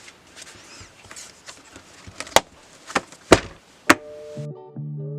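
Handling sounds: a faint rustle broken by four sharp knocks or clicks, then keyboard music starts near the end.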